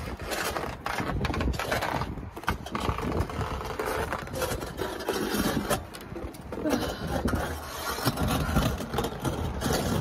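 Gloved hand scraping and crunching into hard, icy snow crust, in an irregular run of gritty scrapes with a low rumble underneath.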